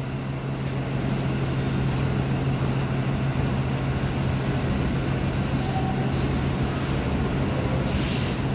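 New York City subway train approaching along elevated track: a steady low rumble of wheels and motors. A brief hiss comes near the end.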